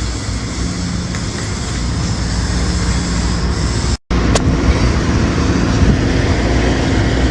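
An engine running steadily, a low hum under a noisy rush, that drops out briefly about four seconds in and then carries on.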